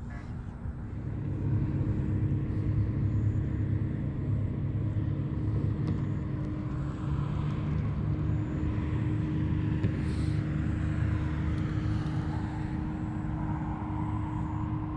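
Road traffic: a steady low rumble with a constant hum running under it, and the sound of vehicles swelling and fading through the middle.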